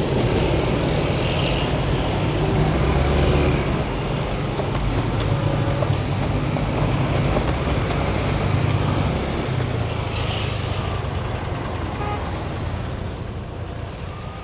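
Road traffic at a level crossing: car, motorcycle and truck engines running and pulling away, a steady low rumble with tyre noise that fades toward the end.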